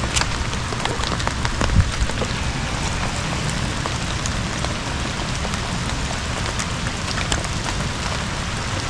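Hard rain falling steadily, a dense hiss of rain with many separate drop hits. A few soft knocks come in the first two seconds.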